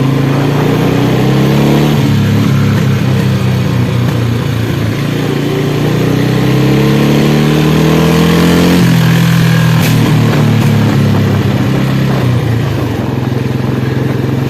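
Royal Enfield Bullet single-cylinder motorcycle engine revving: its pitch climbs steadily for several seconds, drops sharply about nine seconds in, then runs on at a steady lower speed.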